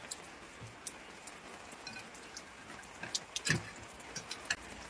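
Scattered light clicks and taps over a faint steady background, with one louder knock about three and a half seconds in.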